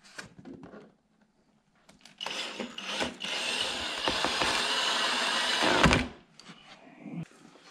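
Power drill driving a screw into the side skirt to fasten it to the car, a steady whir for about four seconds that stops abruptly about six seconds in.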